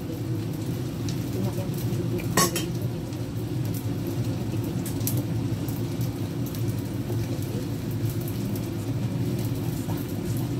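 Steady low rumble of a gas stove while egg cooks in a wok, with a single sharp clink of a utensil about two and a half seconds in.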